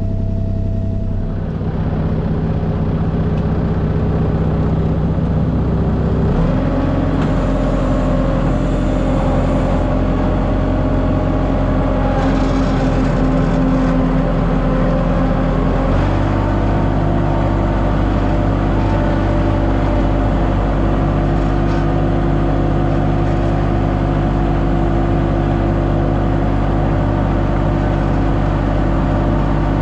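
Engine of a piece of heavy equipment (skid steer or excavator) running steadily under work, its pitch stepping to new settings about a second in, around six seconds in and again around sixteen seconds in.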